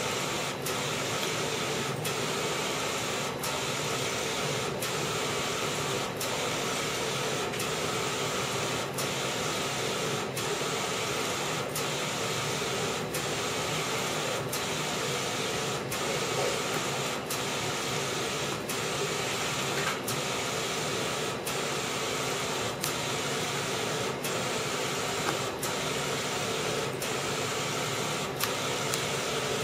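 Wide-format inkjet printer printing: a steady mechanical whir from the print head carriage sweeping back and forth, with a sharp click repeating about every three-quarters of a second.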